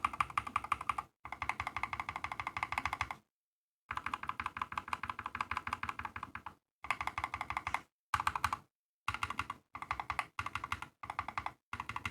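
Fast typing on a mechanical keyboard fitted with lubed Holy Boba frankenswitches (Holy Panda stem in a Boba U4T housing), giving deep-pitched tactile keystrokes. The keystrokes come in quick runs broken by short pauses.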